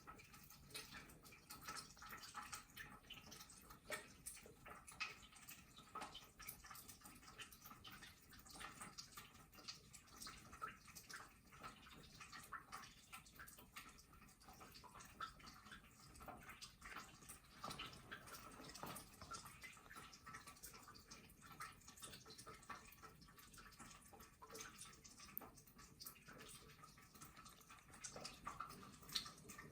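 Faint trickling and irregular dripping of a thin stream of water running across wet sand in a stream-table model.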